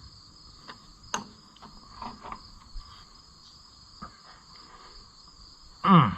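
Steady chorus of crickets, with a few light clicks and taps of tools on the tractor. Near the end comes a short loud vocal sound from a person, falling in pitch.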